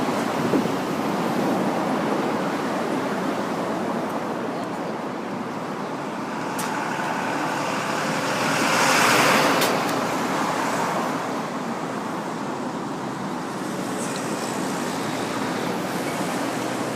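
Steady road traffic noise, with one vehicle passing by that swells and fades about nine seconds in.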